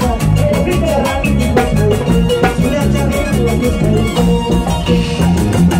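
Live Andean dance music: a harp melody over a band with a repeating bass line and a steady, quick drum beat.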